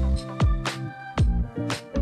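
Background music with a steady beat: punchy kick drum and snare over held bass and synth notes.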